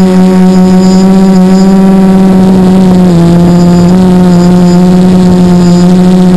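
Quadcopter's Sunny Sky 2216 brushless motors and propellers running in flight, a steady high hum. The pitch dips slightly about three seconds in and comes back up a second later as the throttle eases and returns.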